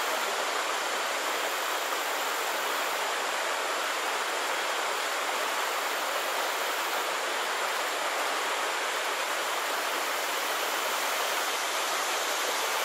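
Shallow stream water running steadily over rocks, an even, unbroken noise.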